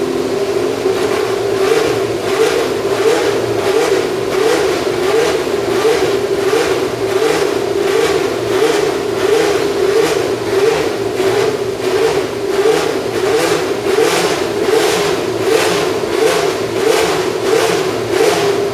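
Tyrrell P34's Cosworth DFV V8 racing engine running at high revs, holding a steady pitch with a regular pulsing about twice a second that grows stronger partway through.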